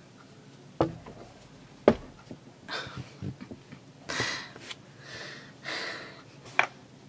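Several short breathy puffs close to the microphone, each about half a second long, with sharp clicks around them; the click about two seconds in is the loudest sound.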